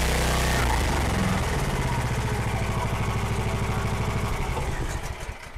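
15 HP 420cc electric-start gas engine of a pressure washer running. About half a second in, its steady note changes to a slower pulsing beat, and it dies away near the end as it is shut off.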